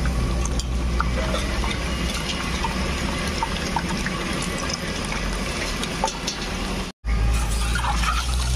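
A large batch of eggs deep-frying in hot oil: a steady sizzle with scattered small pops and crackles over a low steady rumble. It drops out for an instant about seven seconds in, then carries on.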